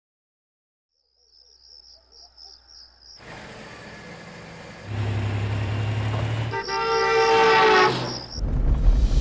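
Insects chirping, then the rumble and road noise of a truck approaching on a highway. The truck sounds its horn, one steady blast of about a second, with a loud rush of noise just after.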